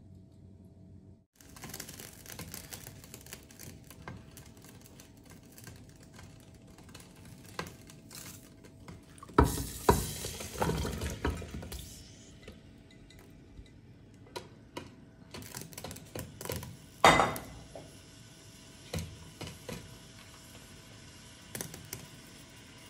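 Kitchen clatter from a cooking pot and a glass bowl being handled: scattered clinks and knocks, a quick run of strikes about ten seconds in and one sharp, loud knock about seventeen seconds in, as the bowl's contents are tipped into the pot.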